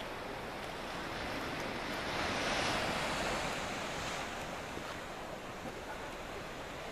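Sea surf washing on the rocks below the cliffs: a steady rushing that swells to its loudest about two to three seconds in, then eases.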